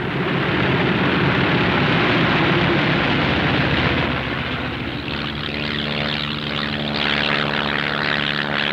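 Four-engine heavy bomber's propeller engines running at full power as it rolls for takeoff: a loud, dense roar, with a steady droning tone coming in about halfway.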